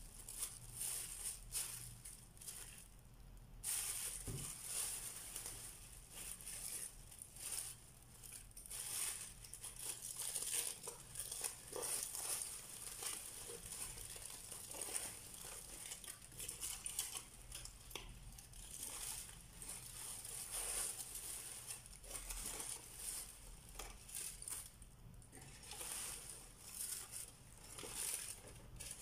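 Plastic bags and foil wrapping crinkling and rustling in irregular bursts as food is unwrapped by hand.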